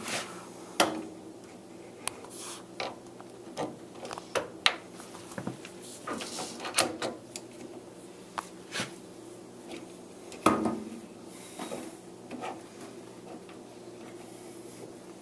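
Metal clicks and clunks of a metal lathe's quick-change gearbox selector levers being pulled out and reset to the gear position for 12 threads per inch. The loudest clunk comes about ten and a half seconds in, over a steady low hum.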